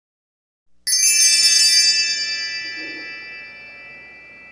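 A single bright, high chime struck about a second in, its many ringing tones fading slowly over several seconds.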